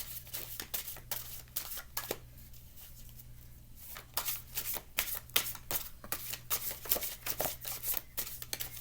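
A deck of oracle cards being shuffled by hand: quick riffling clicks and rustling, with a short pause about two seconds in before the shuffling resumes.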